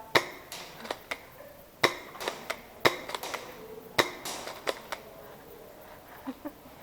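Spring-powered airsoft gun being handled in play: a quick series of sharp clacks and snaps, about a dozen over the first five seconds, as it is cocked and fired.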